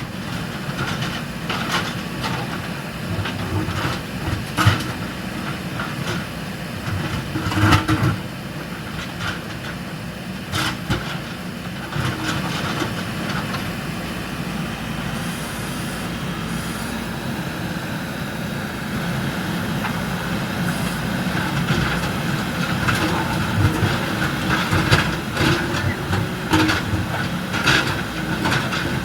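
Diesel engine of a JCB backhoe loader running steadily under work, with sharp metallic clanks and knocks now and then, several of them near the end.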